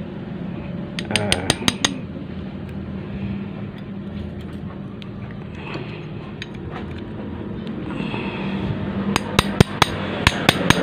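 Pneumatic impact wrench hammering in short bursts of rapid strikes, about a second in and again near the end, tightening the nut that draws a new bush into a Yamaha Vixion monoshock linkage; a steady low hum runs underneath.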